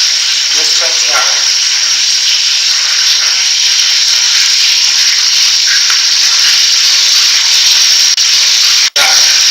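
Loud, steady hiss of a boosted voice-recorder track, as used for EVP playback, with faint, indistinct voices about a second in and again near six seconds in. The sound drops out for an instant near the end.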